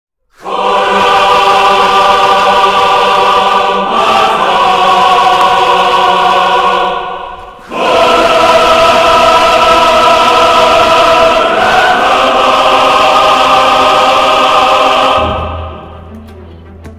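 Choir music: voices holding sustained chords that change every few seconds, with a brief break about halfway through. The choir fades out near the end, leaving a low steady hum.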